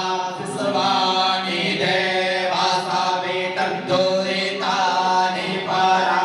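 Sanskrit Vedic mantras chanted by priests, in short phrases about a second long, each held on a steady pitch.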